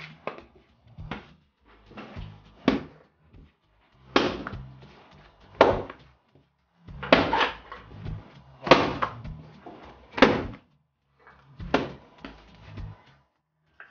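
Soft butter brioche dough kneaded by hand on a granite worktop: a sharp slap as the dough hits the counter about every one and a half seconds, with softer rubbing and pressing between.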